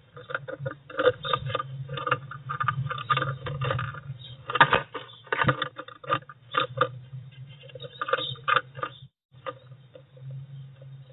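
Eurasian tree sparrow scratching and tapping about on the wooden floor of a nest box: irregular quick clicks and scrapes of claws and beak on wood, over a steady low hum from the nest-box camera.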